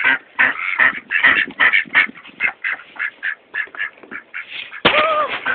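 Domestic duck quacking in a rapid, steady series, about three quacks a second, with one longer, louder call near the end.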